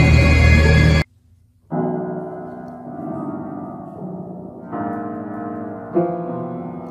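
A loud sound cuts off abruptly about a second in. Then a cat walks across a piano's keys, sounding clusters of notes about four times; each cluster is left ringing and fades.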